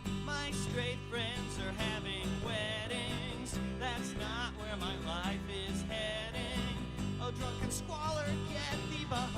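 Live acoustic band performance: strummed acoustic guitars and a bass line, with a wavering melodic lead line on top.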